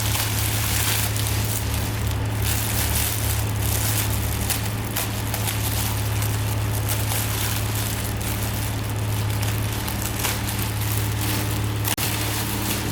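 A motor running steadily, with a low, even hum under a crackling hiss, and a short break near the end.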